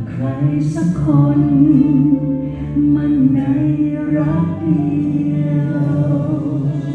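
A man singing into a handheld microphone over a theatre PA, holding long sustained notes.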